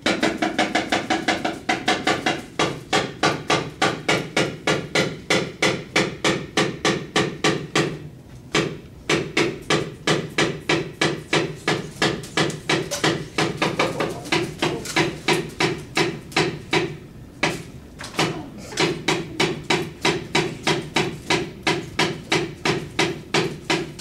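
Fast, steady knocking of the dalang's wooden mallet (cepala) against the wooden puppet chest, about four strikes a second with two brief lulls. It is the battle rhythm that drives a shadow-puppet fight.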